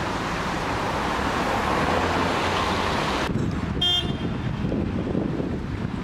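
Street traffic noise, an even hiss of road sound, which changes abruptly about three seconds in to a low rumble of wind on the microphone. Just after the change comes a brief vehicle horn toot.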